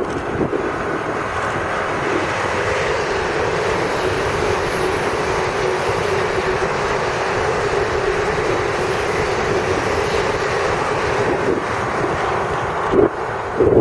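Two coupled Hitachi Class 802 bi-mode trains passing through a station at speed on diesel power: a loud, steady rush of wheels on rail and underfloor engines running.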